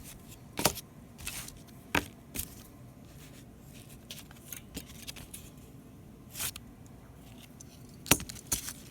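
Scattered light clicks and rattles of a small flashlight being handled, about nine separate short sounds spread unevenly over a quiet background.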